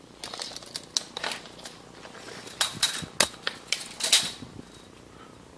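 A run of irregular, sharp clicks and light rattles, some with a brief metallic ring. They are loudest and closest together from about two and a half to four and a half seconds in, then stop.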